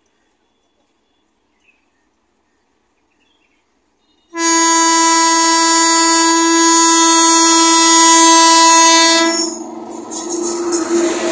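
Air horn of a WAP-5 electric locomotive sounding one long steady blast for about five seconds, starting about four seconds in: the warning given as the train approaches a level crossing. Then the noise of the locomotive and coaches passing close, growing louder.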